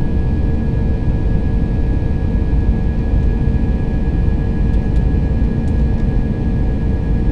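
Airbus A320-200 jet engines heard from inside the cabin during the climb after takeoff: a steady low roar with a few steady humming tones over it.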